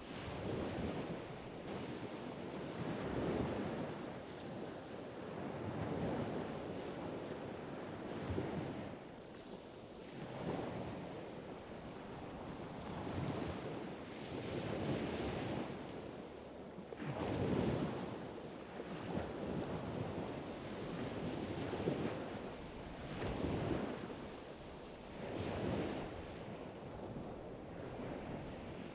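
Sea waves washing in, the sound swelling and ebbing every few seconds, with wind.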